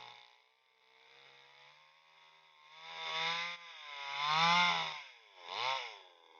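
Green Garden two-stroke chainsaw with a 22-inch bar, running low and then revved up three times in quick succession, its pitch rising and falling with each blip of the throttle.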